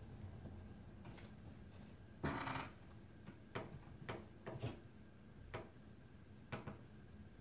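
A person getting up and moving about: a brief rustling scrape about two seconds in, then a string of light, irregular knocks and clicks.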